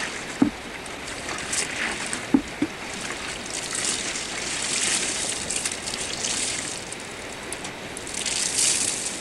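Water sloshing and trickling as laundry is washed by hand in a tub, swelling and easing, with three short thuds in the first three seconds.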